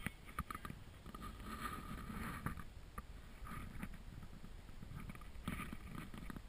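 Camera handling noise: irregular knocks and scrapes as the camera is picked up, carried and set back down.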